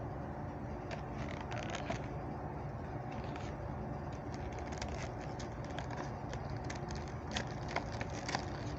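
Hands working at a die-cast toy car's plastic blister packaging: scattered crackles, clicks and scrapes of plastic and card, busiest about a second in and again near the end, over a steady low hum.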